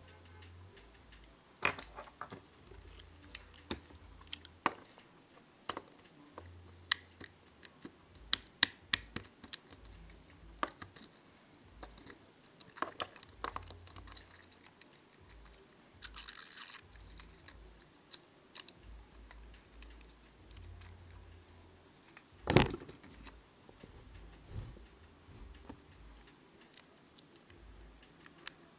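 Irregular clicks, crackles and taps from small objects being handled, with a brief hiss about halfway through and one louder knock about three-quarters of the way in.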